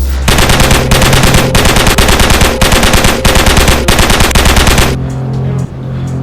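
Rapid machine-gun-style automatic fire, a dense stream of shots for about four and a half seconds that stops suddenly, with low background music underneath.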